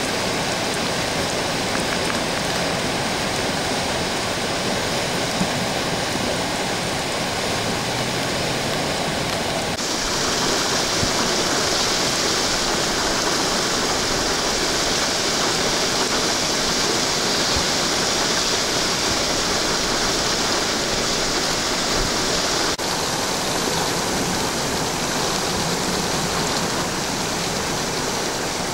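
Steady rushing of water in a rainstorm, from rain or flowing runoff. The sound changes abruptly and turns brighter about ten seconds in, and shifts again about two-thirds of the way through.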